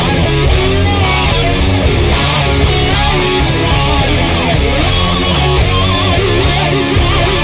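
Loud rock music with distorted electric guitar over a heavy drum beat.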